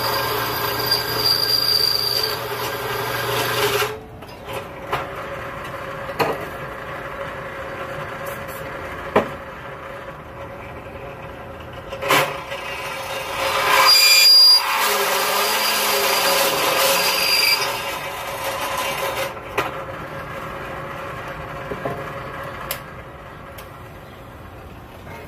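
Tool work on the steel winch-mounting brackets. A tool runs steadily for the first four seconds. After that come scattered knocks and clicks, with a louder burst of noise about halfway through.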